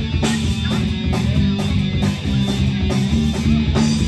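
Live rock band playing an instrumental break: strummed electric guitar over bass and drums with a steady beat.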